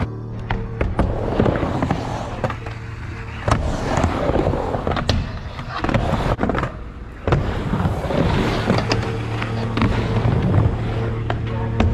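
Yamaha Blaster's two-stroke single-cylinder engine running and being revved unevenly, with sharp cracks and pops from the exhaust.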